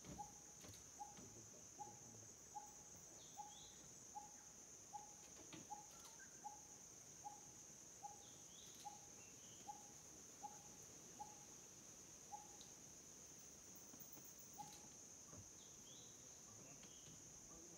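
Faint forest ambience: a steady high-pitched insect drone, with a short call repeated about once every 0.8 s that stops about 12 s in, and a few scattered bird chirps.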